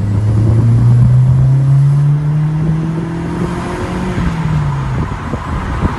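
Mk4 Volkswagen Golf's 1.8T AUM turbocharged four-cylinder engine accelerating, heard from inside the cabin. Its note rises steadily for about three and a half seconds, then falls away about four seconds in.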